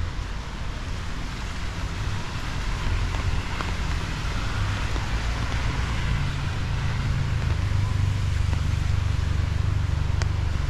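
Rainy outdoor ambience: a steady low rumble of road traffic under an even hiss of rain, the hiss swelling a little midway, with two faint ticks.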